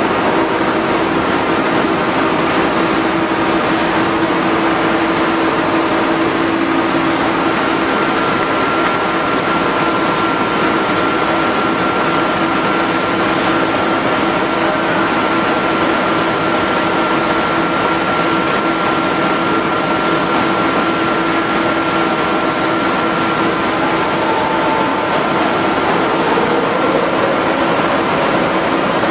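AAC block cutting machine line running: a steady, even mechanical rushing noise with a low hum and a higher steady whine held under it, with no pauses or impacts.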